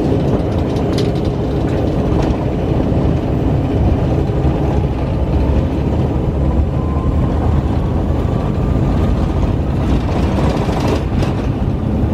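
Jet airliner heard from inside the cabin during the takeoff roll: a steady, loud rumble of engines and runway, with a faint rising whine about halfway through.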